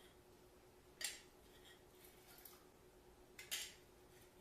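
Two brief clinks of kitchenware, one about a second in and another about three and a half seconds in, over near silence with a faint steady hum.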